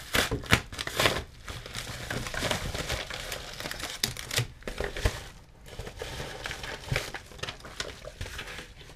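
A padded paper mailer and clear plastic packaging crinkling and rustling as the mailer is opened and the packaged item is pulled out, in irregular crackly bursts.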